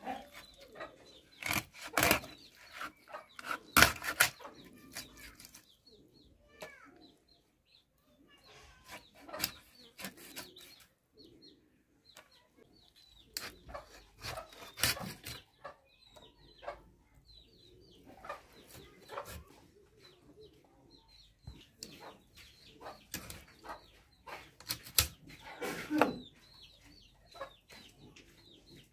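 Raw chicken being cut up on a boti, a curved blade fixed upright in a wooden block: irregular sharp cracks and knocks as pieces and bones are pushed through the blade, the loudest about two and four seconds in, near the middle and near the end. Chickens cluck in the background.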